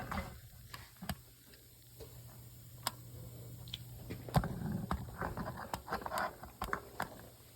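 Light clicks and short rustling noises from hands handling tire-repair tools and a patch, over a steady low hum.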